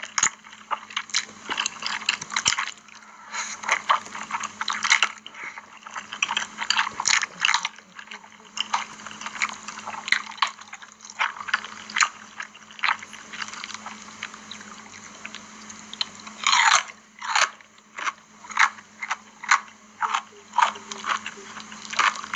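Close-miked eating of spicy instant noodles with cheese: wet chewing, lip smacks and slurps in an irregular stream of short clicks, with one longer, louder sound about two-thirds of the way through.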